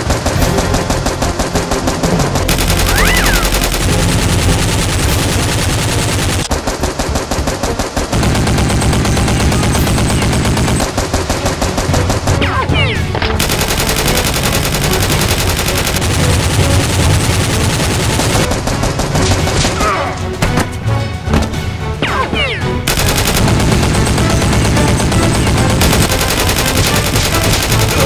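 Rapid automatic gunfire, a dubbed-in movie sound effect laid over a toy-blaster shootout, going in long bursts with short changes between them.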